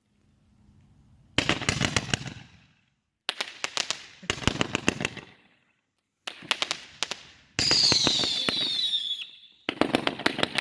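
Brothers Vivid FX 96-shot firework cake firing in volleys: about five clusters of rapid sharp pops and crackling, each a second or two long, with short gaps between. In the fourth volley several high whistling tones slide down in pitch for about two seconds.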